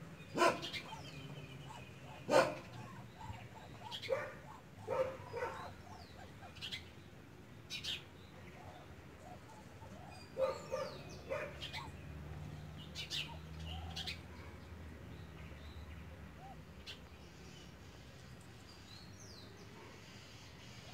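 Short, sharp animal calls every second or two, thinning out after about fourteen seconds to a faint background with a few high chirps.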